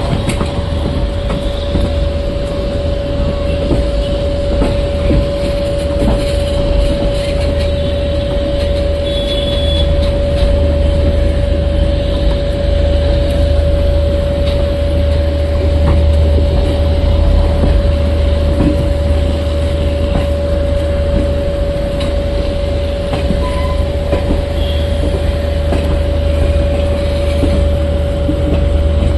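Indian Railways passenger train running slowly on the approach to a station, heard from an open coach door: a steady rumble of wheels on track with a constant humming tone underneath.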